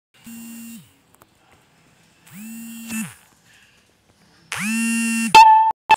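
Three short electric buzzes, each winding up to a steady hum and winding down again. The third is the longest and loudest and ends in a sharp click followed by a brief higher tone.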